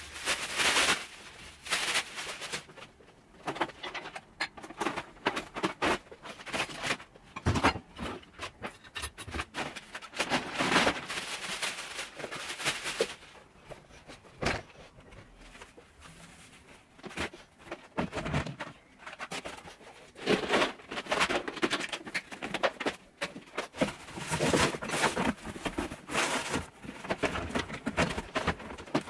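Irregular rustling, knocking and light clatter of household clutter being handled and moved during tidying, with scattered short clicks and louder stretches of rustling.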